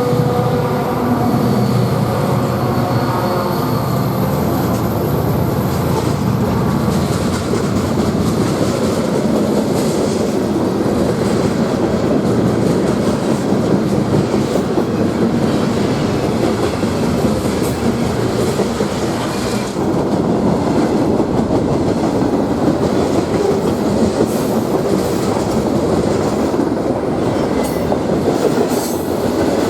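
Wisconsin and Southern freight train rolling past close by under power, accelerating from a stop. Pitched diesel locomotive engine sound fades out over the first several seconds. Then comes the steady rumble and clatter of the freight cars' wheels on the rails, with some wheel squeal.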